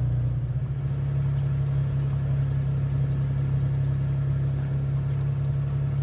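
Pickup truck engine idling, a steady low hum.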